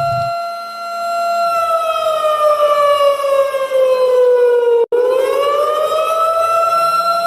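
Warning siren sounding one steady tone, which slides down in pitch for a few seconds, breaks off for an instant about five seconds in, then rises back to its steady pitch.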